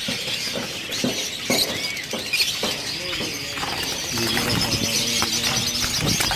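Many caged parakeets, ringnecks among them, chirping and chattering in a dense mix of short high-pitched calls, with scattered clicks and knocks.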